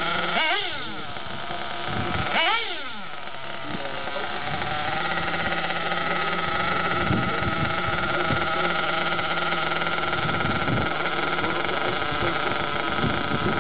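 Small nitro RC car engine running at a steady high pitch. It revs up and back down twice in the first few seconds.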